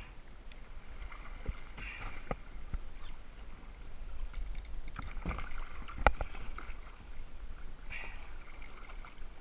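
Water splashing and lapping beside a kayak as hooked bluefish thrash at the surface, with a few sharp knocks, the loudest about six seconds in.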